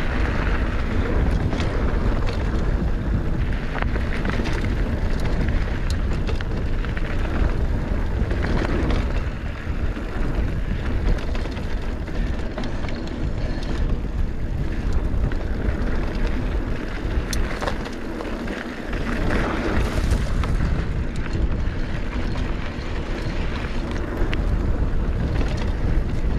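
Mountain bike descending dirt singletrack at speed: wind buffeting the microphone with a heavy low rumble over the tyres rolling on the trail, and a few sharp clicks and rattles from the bike.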